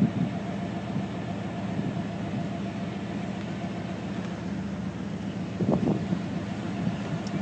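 A steady low engine-like hum over a background of noise, with a brief louder sound a little before the end.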